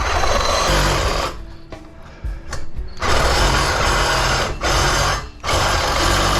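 Power saw cutting through copper and brass scrap pipe clamped in a vise, run in bursts: about a second of cutting, a pause, then a longer run broken by two brief stops.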